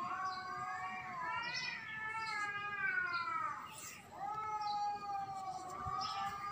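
Cats yowling in a face-off: long drawn-out threat yowls that waver slowly in pitch, with a short break about four seconds in before the next one starts.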